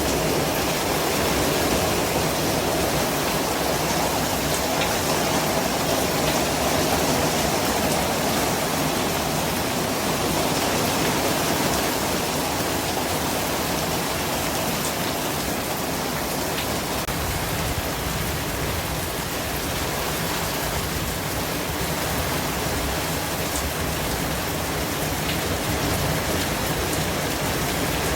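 Continuous white-noise track: an even, unchanging hiss with a few faint scattered ticks.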